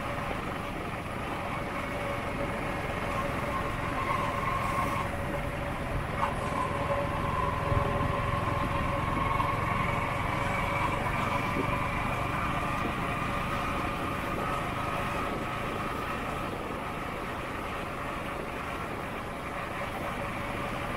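Small Yamaha motorcycle engine running steadily at city cruising speed, with road and wind noise. A whine in the drivetrain rises slightly in pitch partway through.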